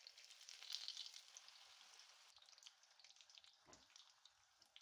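Chicken spring rolls deep-frying in hot oil: a quiet, steady sizzle full of small crackles and pops, loudest about a second in, with one soft low bump later on.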